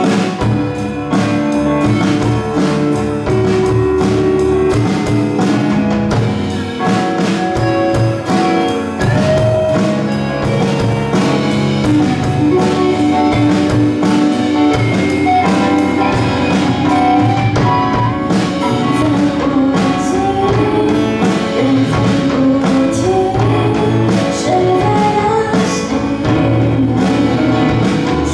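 Live band playing a pop ballad: drum kit keeping a steady beat under keyboard chords and electric guitar, with sliding, wavering melody lines toward the end.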